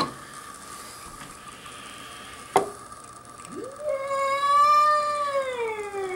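A domestic cat's long, drawn-out yowl, starting about three and a half seconds in: it rises quickly, holds, then slides down in pitch near the end. It is the threat call of a cat facing off a young bobcat. A single sharp click comes a little before it.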